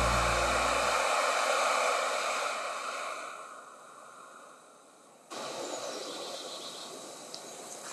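Background music ends about a second in and a hiss fades away; then, about five seconds in, a Jetboil camp stove's gas burner starts suddenly and runs with a steady hiss.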